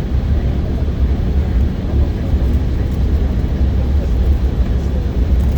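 Steady low rumble of cabin noise inside an Embraer 190 airliner on the ground.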